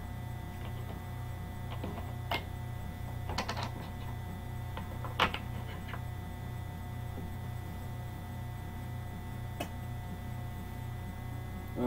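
Steady low electrical hum with a few sparse light clicks and taps.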